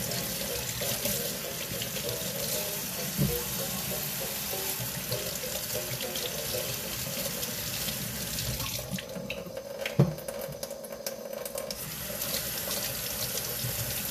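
Kitchen faucet running into a stainless steel sink while lemons and then a red onion are rubbed clean by hand under the stream. The splashing thins out briefly about nine seconds in. There are two short dull knocks, the louder one about ten seconds in.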